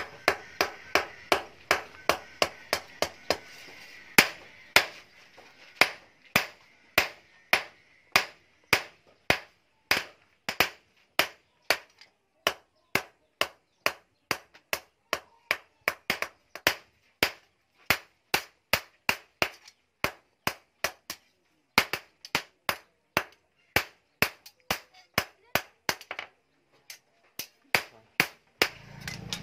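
Hand hammer striking a hot rebar sword blade on a steel-post anvil, sharp metal-on-metal blows at about two a second. There are short pauses about two-thirds of the way in and again near the end.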